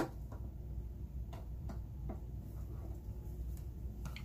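A scattering of faint, irregular light clicks and taps as small makeup items are handled, over a low steady room hum.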